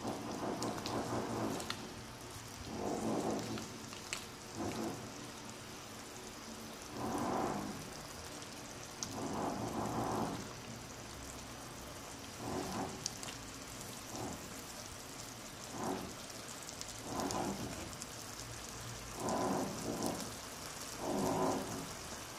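Chicken curry in coconut milk simmering and crackling in a nonstick wok, the sauce boiling down to thicken. Louder swishes come every second or two as a spatula stirs through it.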